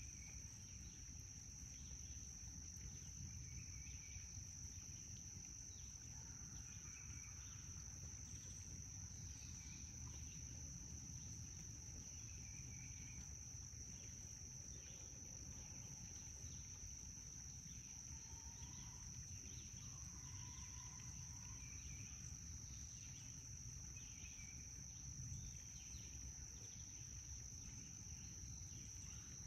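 Insects trilling in one steady, unbroken high tone, with short bird chirps every second or two over a faint low rumble.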